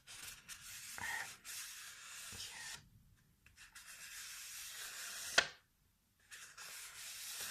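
Rubbing on paper in four strokes of one to two seconds each, with short pauses between them. A sharp tap about five and a half seconds in is the loudest sound.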